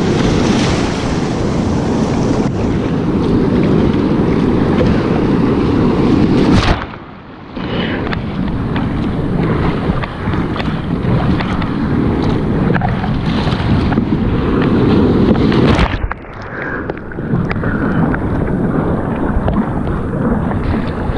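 Wind buffeting the microphone over surf and water splashing around a sea kayak out in the waves. About seven and sixteen seconds in, the noise twice drops away suddenly and comes back muffled for about a second.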